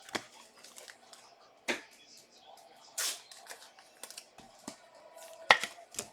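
Trading cards and foil pack wrappers being handled: a few sharp clicks and taps, the loudest a little after five seconds in, and a brief rustle about three seconds in.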